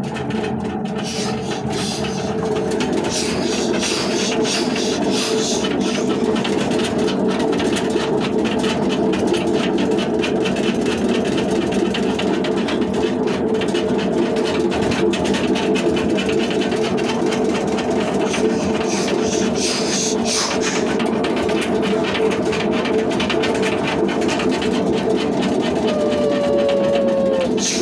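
Washing machine running: steady, loud motor and drum noise, with a short falling whine near the end.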